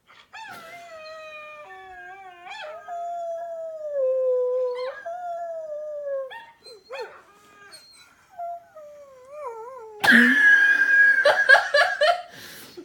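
Dog howling: a run of long, wavering howls that slowly fall in pitch, ending in a louder, higher cry over the last couple of seconds.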